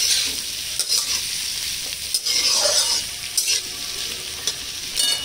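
Sliced onions and green chilli sizzling in hot ghee in a kadai, stirred with a flat steel spatula that scrapes against the pan several times. The onions are being fried only lightly to take off their rawness without browning.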